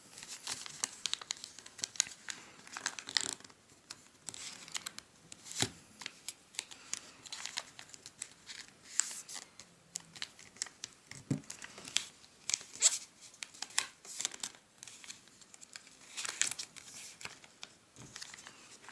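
A square of origami paper being folded and creased by hand: irregular crinkling and rustling, with many short, sharp crackles as creases are pressed down.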